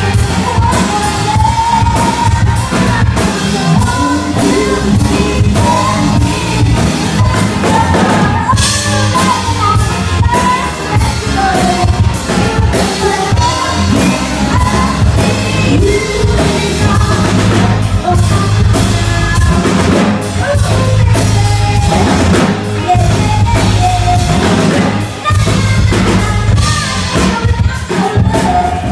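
Live band music: a woman singing over a drum kit, guitar and keyboard, loud and steady.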